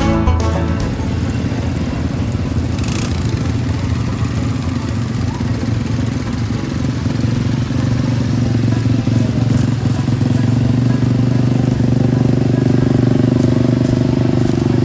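Small off-road vehicle engines running steadily, growing louder near the end as a quad bike rides close by.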